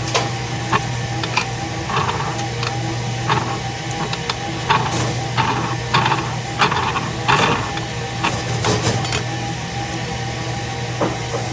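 Irregular metal clinks and taps as a worn disc pad is worked off a floor edger's armature with a disc pad remover, over a steady low hum.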